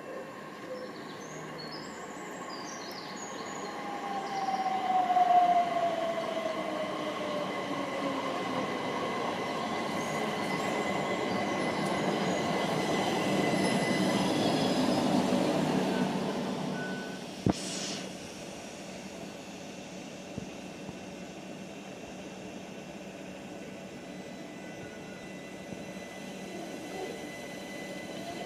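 Southeastern Class 375 Electrostar electric train pulling into the platform: an electric motor whine falls steadily in pitch as it slows, the wheels rumble louder as the carriages roll past, and a single sharp clunk comes just over halfway through. After that the train stands with a steady hum of its equipment and a thin high tone.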